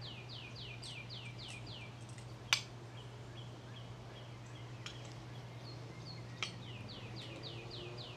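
A songbird singing twice: each song a quick run of about eight downward-sliding whistles, with a few short single notes between the songs. A sharp click about two and a half seconds in is the loudest sound, and a steady low hum runs underneath.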